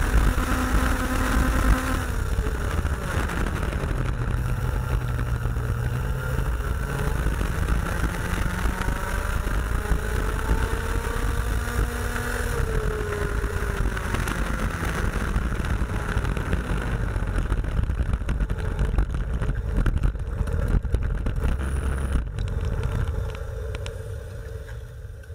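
IAME X30 125cc two-stroke kart engine heard onboard at racing speed, its pitch rising and falling as the driver lifts and gets back on the throttle through the corners, with wind noise on the microphone. Near the end it drops away and fades as the kart slows into the pits.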